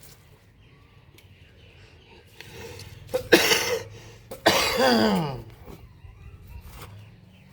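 A person coughing twice, about three seconds in and again about a second later; the second cough trails off in a falling voiced sound.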